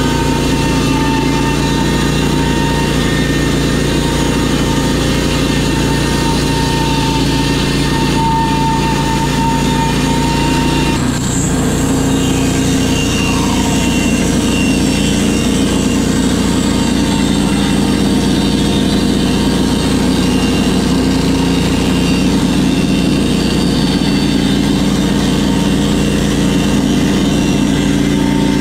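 Norwood HD36V2 portable bandsaw mill's gas engine running steadily while sawing lumber; its pitch changes abruptly about eleven seconds in.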